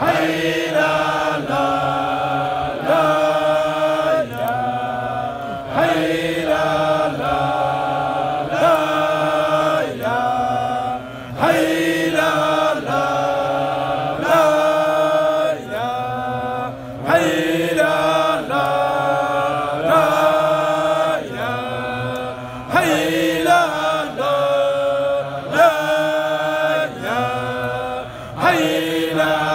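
Men chanting Sufi dhikr in a melodic, repeating line, phrase after phrase with short breaks for breath.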